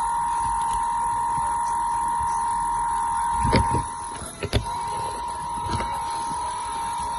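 A steady high-pitched whine with a few sharp knocks and clicks about halfway through, typical of die-cast toy models being handled.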